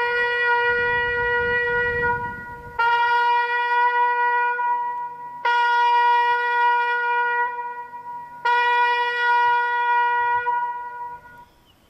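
Trumpet sounding a slow call: a long held note, then the same note sounded three more times, each held for two to three seconds, the last one dying away near the end.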